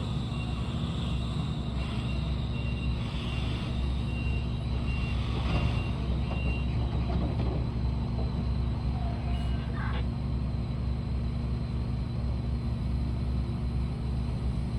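Heavy mining diesel engines of a Komatsu PC2000 excavator and HD785 dump truck running with a steady deep drone, while a back-up alarm beeps about twice a second for the first six or seven seconds. A brief hiss or clank about ten seconds in.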